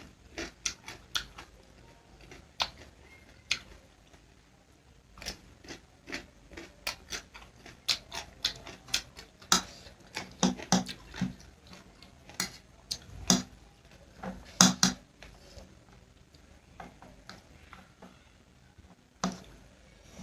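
Close-miked eating sounds: irregular chewing and mouth smacks on instant ramen noodles, with scattered sharp clicks of utensils against a bowl.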